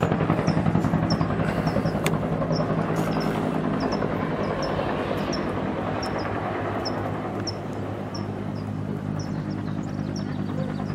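A steady, low engine drone that slowly eases off, with a small bird chirping about twice a second over it.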